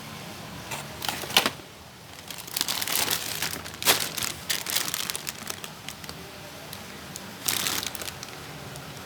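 Crinkling and rustling, as of plastic being handled, in irregular bursts of about a second or less.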